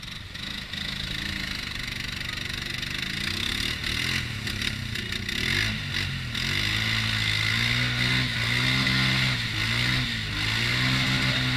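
Four-wheeler (ATV) engine revving hard as it churns through a mud hole, its pitch rising and falling in repeated pulls of about a second each from the middle on, getting louder as it comes closer.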